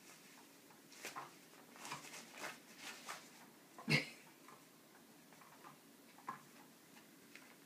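Cats pawing and scratching at a yellow fabric play-toy sheet: scattered irregular rustles and scrapes, with one sharper, louder hit about four seconds in.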